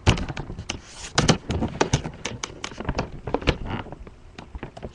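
Irregular taps, clicks and knocks of a computer power supply being shifted and lined up in its bay inside a desktop case.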